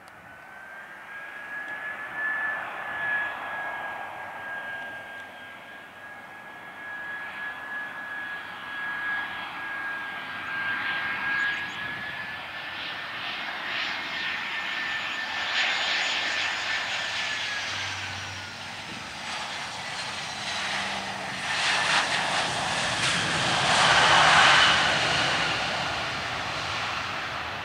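Airbus A320 airliner's jet engines on landing approach: a steady high whine over a rushing noise that grows louder as the aircraft nears. The whine drops in pitch about 18 seconds in as the plane passes, and the rush is loudest near the end as it comes down onto the runway.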